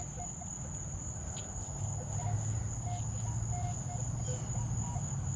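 Minelab Equinox 800 metal detector giving short beeps at several different pitches as it is swept over a freshly dug hole, the sign of several metal targets in the hole. A low hum comes in through the middle, and steady cricket chirring runs behind.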